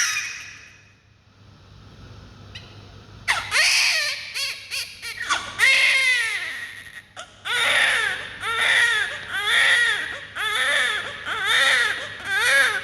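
A baby crying. It starts about three seconds in with a few broken cries and a long falling wail, then settles into a steady rhythm of short, high-pitched wails, roughly one a second.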